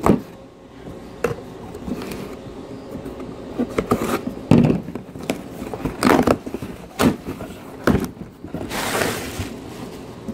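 Cardboard shipping box being opened by hand: packing tape slit and pulled away and the flaps pried open, with scattered sharp knocks and a longer scraping rush of cardboard near the end.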